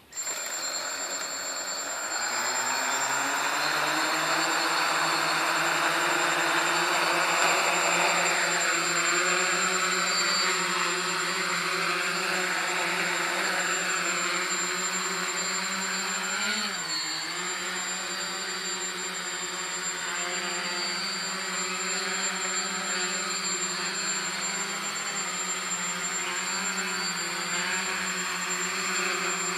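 Small quadcopter's electric motors and propellers starting abruptly and spinning up, the pitch rising over the first few seconds, then a steady whirring buzz as it hovers low. About halfway through the pitch dips briefly and recovers.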